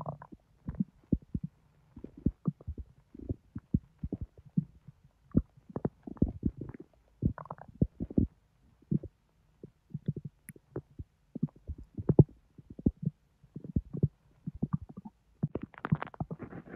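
Bowel sounds from a bloated, overfull belly digesting a large junk-food meal: irregular short gurgles and pops, several a second, with a longer, louder gurgle near the end.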